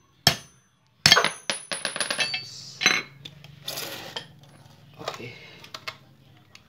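A chrome steel socket drops onto a tiled floor about a second in and clatters in a quick, thinning run of ringing metallic clinks. Scattered metal clicks and knocks follow as the rubber engine mount and its steel bolt are picked up and handled.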